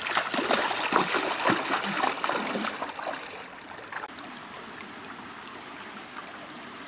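Bare feet splashing and sloshing through a shallow stream for about the first three seconds, with a high insect trill underneath. The splashing then stops and the insect trill, a rapid even pulsing, carries on alone.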